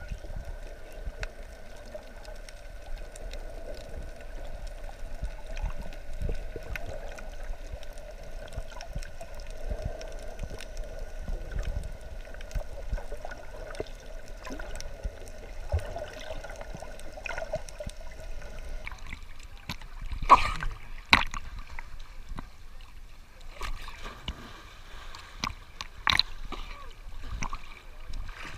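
Water heard through a GoPro's waterproof housing: a muffled, steady underwater hum with faint gurgling, then, about two-thirds of the way through, the camera breaks the surface and water splashes and laps against the housing in sharp slaps.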